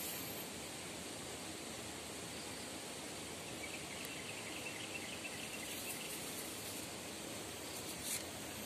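Steady, even rush of stream water flowing, with faint high chirping partway through and a brief sharp tick near the end.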